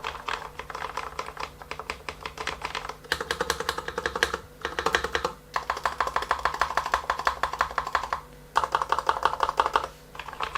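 Fast typing on a Corsair K60 RGB PRO Low Profile mechanical keyboard with Cherry MX low-profile switches: a fairly quiet, light clatter of keystrokes, each with a soft thud as the keycap bottoms out against the housing. The typing comes in quick runs with several brief pauses.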